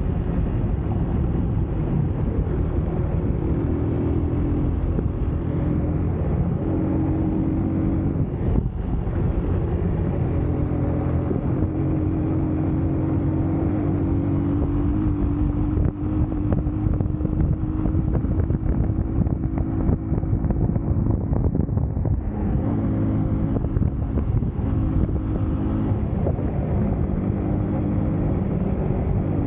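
A 250cc Eagles EBA250 motorcycle engine running under way off-road, its note rising and falling with the throttle, held steady for several seconds in the middle and then dropping. Wind buffets the microphone throughout.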